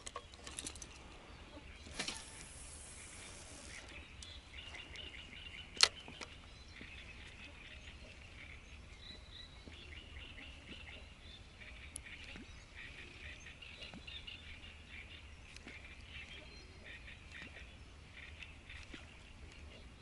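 Small birds singing in reed beds: a steady chorus of chirps and trills. About two seconds in there is a hissing whoosh lasting about two seconds, and near six seconds a single sharp click, the loudest moment.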